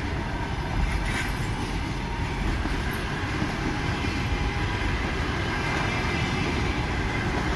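Passenger train coaches rolling past: a steady rumble of wheels on rails.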